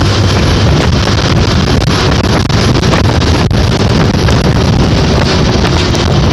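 Wind buffeting the microphone from a moving bus, over the steady low rumble of the bus's engine and tyres on the road. A single sharp click about three and a half seconds in.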